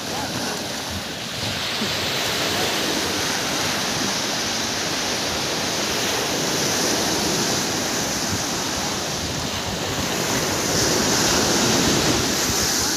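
Surf breaking and washing up the sand, swelling louder near the end as a wave rolls in, with wind buffeting the microphone.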